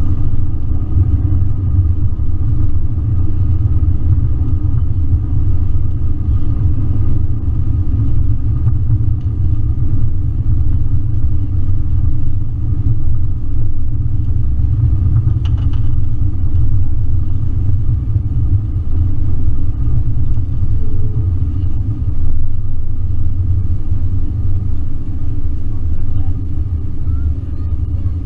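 Airbus A321 cabin noise heard from a window seat as the jet rolls along the runway and taxiway after landing: a steady, loud low rumble of engines and wheels, with a faint steady high tone above it.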